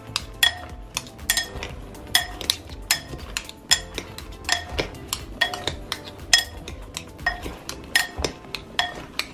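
Spoons clinking against a ceramic mixing bowl while chopped vegetables are tossed in oil. The strikes are irregular, about two or three a second, and each rings briefly.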